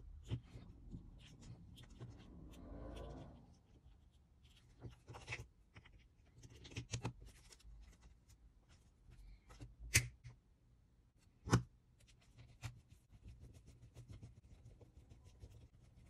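Faint handling sounds of a small plastic RC servo being put back together: light rubbing and rustling of the wire bundle and grommet, scattered small plastic clicks, and two sharper clicks around two-thirds of the way through.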